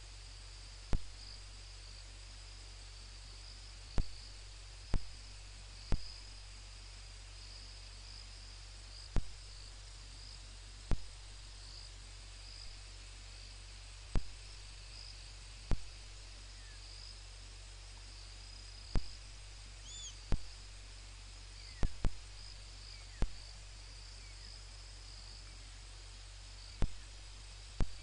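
Crickets chirring steadily in a high-pitched band, broken every second or two by loud sharp clicks, over a steady low hum.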